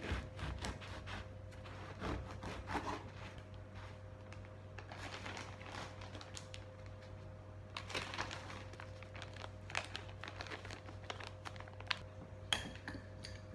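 A knife sawing through the crust of a seeded bread loaf on a wooden cutting board in quick strokes, then a plastic zip-top bag crinkling and rustling as the slices are packed into it, with a couple of sharp clicks near the end.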